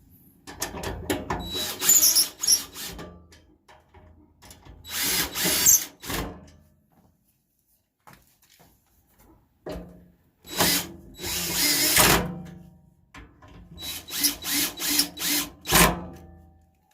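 Power drill driving Phillips screws into metal leg braces in about four short runs with pauses between, set to a low clutch setting so it doesn't strip or overtighten the screws.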